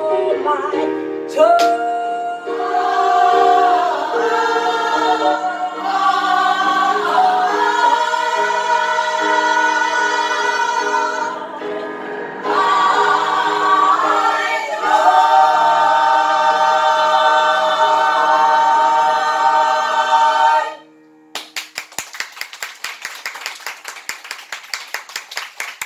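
Small mixed choir singing a gospel song in harmony, closing on a long held chord that cuts off about three-quarters of the way through. The singers then clap their hands in quick succession.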